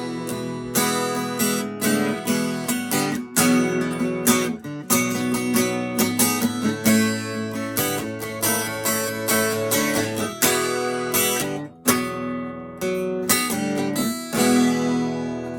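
Acoustic guitar strummed in a steady rhythm, the closing chords of a country song, ringing out and fading near the end.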